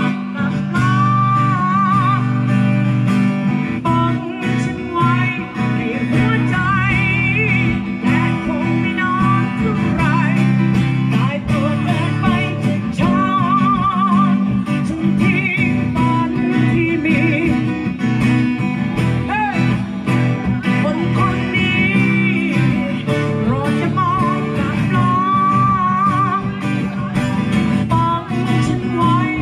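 Live acoustic music: strummed acoustic guitars with a lead melody line carrying vibrato over them.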